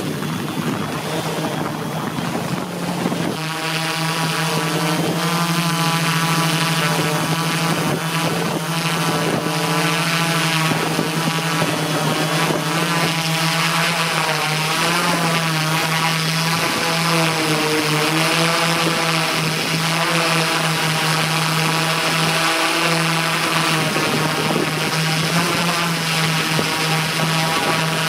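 Align M480L multicopter's electric motors and propellers humming, several pitches wavering up and down together as the motor speeds keep adjusting. The sound becomes louder and fuller about three seconds in.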